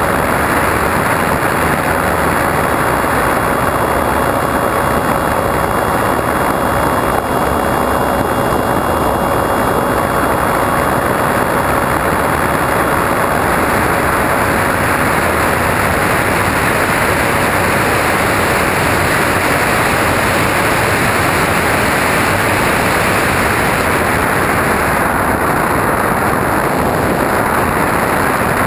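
Airflow rushing over the microphone of a camera on an RC model plane in flight, a loud, even noise together with the plane's propeller and motor, with a faint steady whine that fades about halfway through.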